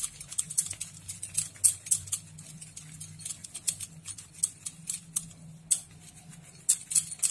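Oiled hands rolling and pressing a ball of soft bread dough between the palms, making irregular sticky smacking clicks several times a second, with a steady low hum underneath.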